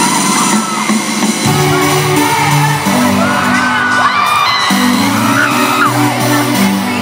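Loud live pop music over a concert sound system: steady synth chords and a bass line that changes note every half second or so. A crowd screams and whoops over it.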